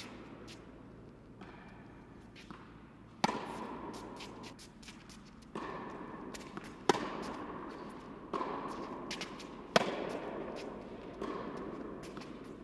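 Tennis ball struck by racket strings in a baseline rally: three sharp hits about three seconds apart, with quieter knocks from the far end of the court in between. Each hit rings on in the echo of an indoor tennis hall.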